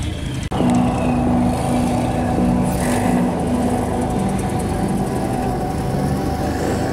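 Dodge Neon SRT-4s' turbocharged 2.4-litre four-cylinder engines running as the cars roll slowly past. The sound comes in suddenly about half a second in and then holds steady, its pitch shifting in small steps.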